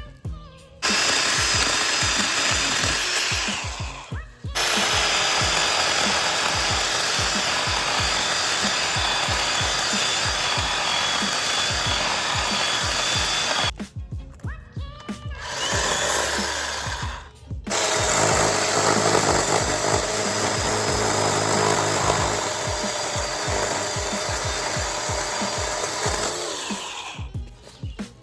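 Greenworks 12-inch 40-volt battery-powered chainsaw running and cutting wood in several long runs, with short pauses about four seconds in and again around the middle. Background music with a steady beat plays under it.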